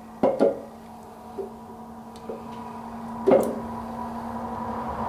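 Cylinder head being shifted and seated onto a Chevy 350 V8 block over its locating dowels: two quick knocks just after the start, a couple of light taps, then another sharp knock about three seconds in. A steady faint hum runs underneath.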